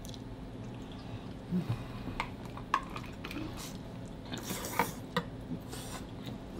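Cutlery clinking against a plate, with wet eating sounds as creamy fettuccine alfredo is forked up and eaten. A few sharp clicks are scattered through the middle.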